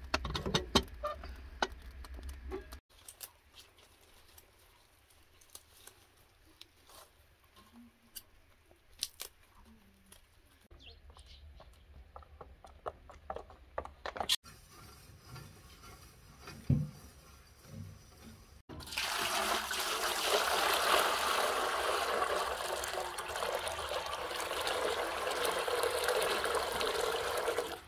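A stream of water pouring steadily into a large metal basin, splashing, starting about two-thirds of the way through and the loudest sound here. Before it, quieter stretches with scattered small clicks and knocks.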